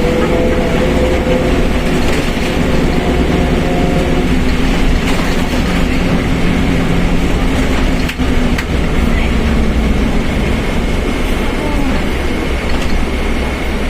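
Mercedes-Benz OF1721 BlueTec 5 bus under way: a steady diesel drone with a loud differential roar, heard as a pitched whine. The whine is strongest in the first half and fades a little after the middle.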